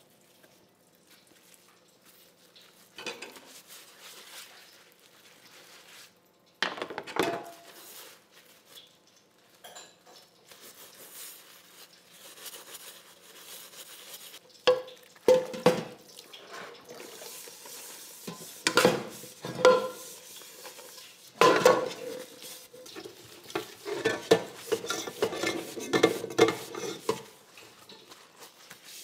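Metal cookware clattering: a spoon knocking and scraping against a metal pot. There are scattered sharp clinks, a loud knock about seven seconds in, and a quick run of stirring strokes against the pot's side near the end.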